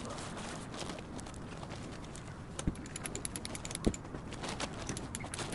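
Fabric rustling and light clicks as a one-touch pop-up tent is pulled out and spread on grass, with two sharp knocks a little over a second apart midway.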